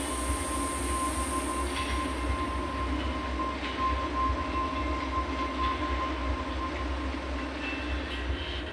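Electronic noise-drone music played live on synthesizers: a deep, steady rumble under rough noise, with a sustained high tone that fades out near the end and faint scattered clicks. A high hiss on top dies away a couple of seconds in.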